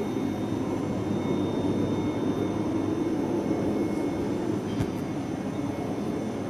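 Steady low mechanical rumble with faint steady high-pitched tones above it, unchanging throughout, and a faint click near the end.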